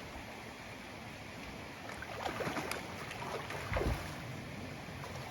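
Creek water rushing steadily, with a burst of splashing about two seconds in and a heavier thump near the middle as someone wades across the creek.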